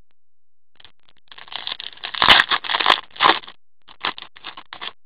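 Foil wrapper of an SPX hockey card pack being torn open and crinkled, a run of crackling rustles loudest about two seconds in, then a few shorter crinkles near the end.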